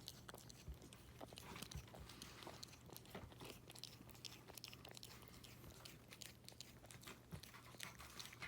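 A cat chewing on a string: faint, irregular little clicks and crunches of its teeth on the cord.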